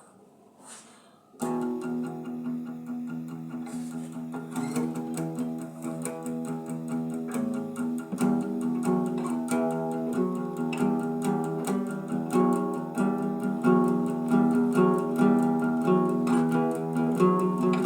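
Guitar playing the instrumental intro of a song cover: picked notes start about a second and a half in and grow busier and louder toward the end.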